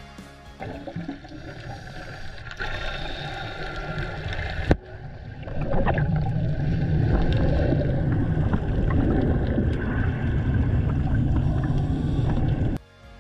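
Underwater sound picked up by a diving camera: a low rumble of water and bubbling, louder and steadier from about six seconds in, with one sharp click about five seconds in.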